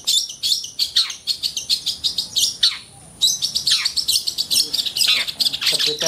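Long-tailed shrike (cendet) singing a fast, unbroken run of high chattering notes mixed with downward-swooping calls. It pauses briefly about halfway through.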